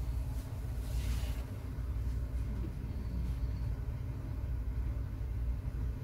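Steady low background rumble, with a brief hiss about a second in.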